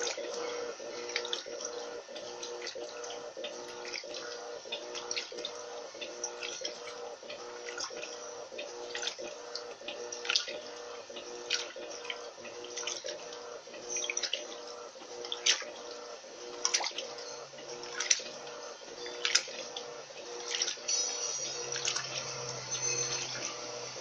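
Electrolux Turbo LT12B top-loading washing machine agitating a load in a full tub of water: a steady motor hum with water sloshing and splashing in regular strokes, about one every second and a quarter. A deeper hum joins in near the end.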